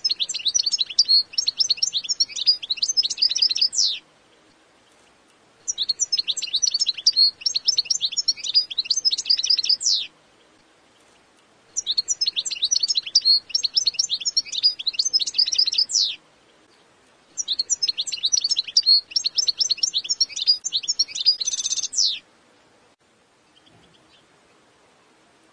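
European goldfinch singing: four long bursts of rapid, high twittering, each about four seconds long with short pauses between them, then quiet near the end.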